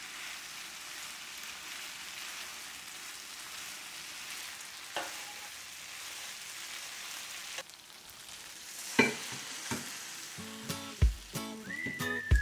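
Food sizzling steadily in hot oil in a pan, with a few sharp clicks and knocks of a utensil against the pan. Music with a beat comes in near the end.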